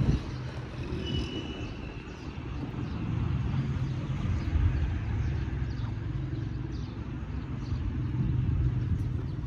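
Steady low rumble of vehicle engines, like road traffic going by.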